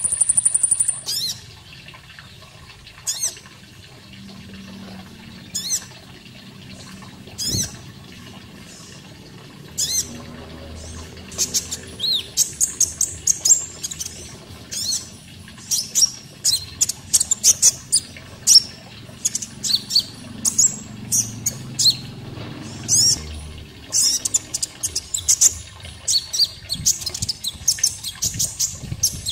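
Konin songbird singing: short, high chirps and sweeping notes, a few scattered calls at first and then quick chattering runs from about ten seconds in. A faint steady water sound lies underneath.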